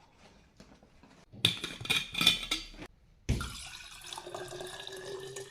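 Some clattering handling of the container, then about three seconds in water starts pouring into a drinking-water bottle, a steady rush whose tone slowly rises as the bottle fills.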